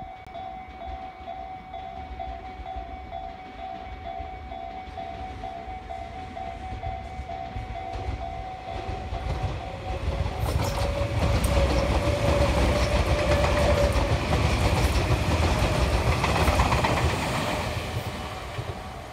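A red Tobu limited-express electric train approaches and runs past close by. Its rumble builds from about eight seconds in and is loudest for about six seconds, with wheel clicks over the rail joints, then fades near the end. Before the train arrives, a steady, pulsing ringing tone sounds and is drowned out as the train comes level.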